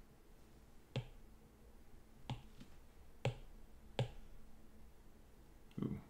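A stylus tapping and clicking on a tablet while drawing: five sharp, irregularly spaced taps, the last a slightly duller knock near the end.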